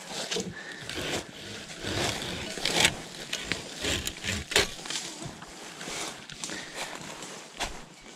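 Hand pruning saw cutting a chaga growth off a birch trunk: uneven back-and-forth rasping strokes, heaviest in the first few seconds, then lighter as the piece comes free.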